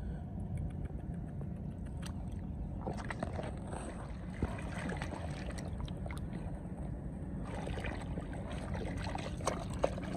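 Hands sloshing and squelching through shallow muddy water and soft mud, with many small splashes and wet slaps, busiest from about three seconds in, over a steady low rumble.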